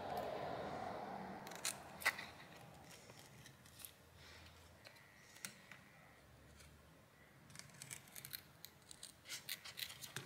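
Scissors cutting a sheet of soft thermal pad: a few separate snips, then a quicker run of small snips and clicks near the end.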